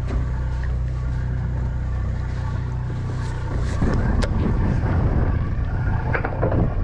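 A boat's engine running with a steady low drone; about four seconds in, a rougher, louder rumble joins it.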